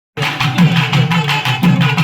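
Drum-led music starting abruptly just after the opening: quick, steady drum strokes with deep drum tones that bend in pitch, over other instruments.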